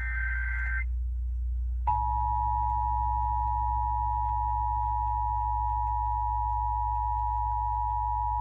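Emergency Alert System broadcast over FM radio: the tail of a SAME header data burst, a short warbling digital screech, ends within the first second. After a brief gap, about two seconds in, the steady two-tone EAS attention signal starts and holds, over a steady low hum.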